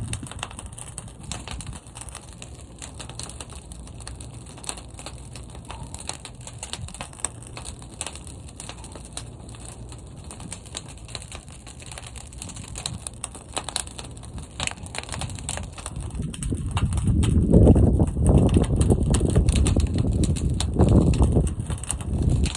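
Fire burning inside a large kiln, with continuous dense crackling. A low rumble of the flames swells much louder about three quarters of the way through.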